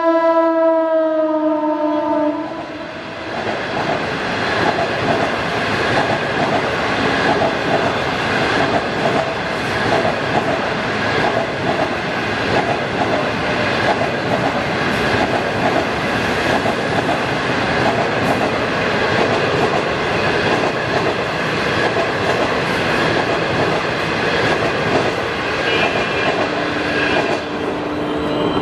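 Electric locomotive's horn sounding one long blast that drops slightly in pitch and stops about two seconds in. Then a long passenger train rushes past with steady wheel-on-rail noise and clickety-clack from the coaches. A fainter steady tone starts near the end.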